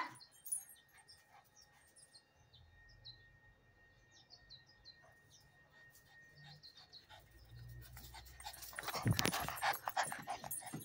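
A small dog panting rapidly close to the microphone for a couple of seconds near the end, after a stretch of near quiet.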